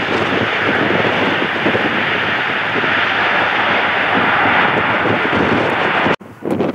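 Jet engine noise from a passing airliner, loud and steady and swelling slightly, cut off abruptly near the end, leaving wind buffeting the microphone.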